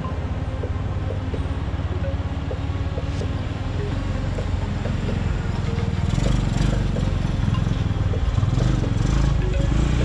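Small off-road vehicle engines running as a four-wheel-drive mini monster-truck kart and a youth ATV drive past, growing louder about six seconds in as they come close.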